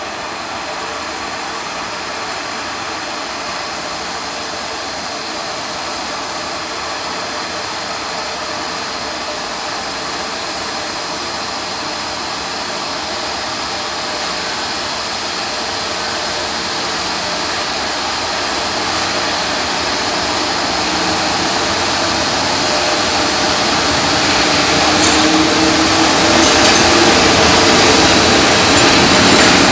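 Electric freight train approaching: a steady rumble and hiss of wheels on rail, growing steadily louder as it nears.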